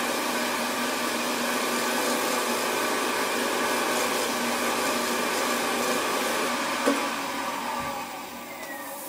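Record Power variable-speed wood lathe running fast, about 1200 RPM, a steady whir, while a cloth buffs friction polish onto the spinning bowl. About seven seconds in there is a click, and the sound fades with a falling whine as the lathe slows down.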